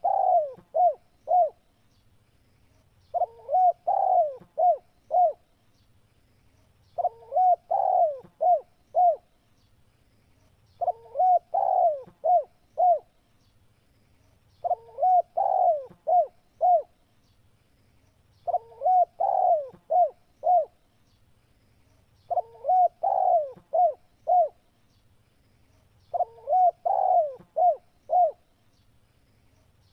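Spotted dove (tekukur) cooing, repeating the same phrase about every four seconds. Each phrase is a rolling coo followed by three short clipped notes. It is a lure call meant to make other doves answer.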